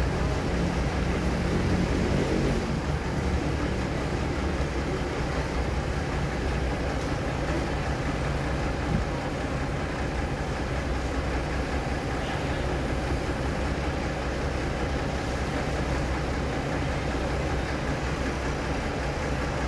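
Standing passenger train's diesel engine idling with a steady low hum.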